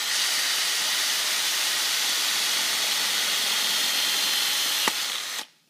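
Cordless drill running steadily as its bit drills a hole into the pressed-in end cap of a barbell sleeve, the hole that will be tapped for a quarter-20 thread. There is a short click near the end, and the drill then stops abruptly.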